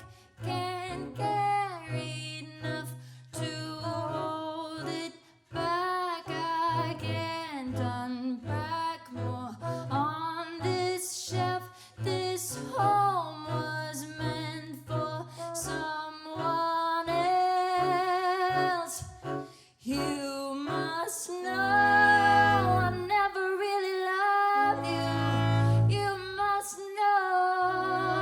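A small jazz group of voice, double bass, alto saxophone and trombone plays a piece live. Double bass notes sit underneath a melody line that wavers in pitch, and heavier low notes come in twice near the end.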